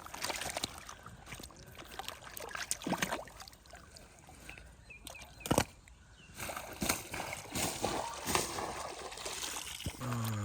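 Water sloshing and splashing in irregular bursts, with one sharp splash or knock about five and a half seconds in.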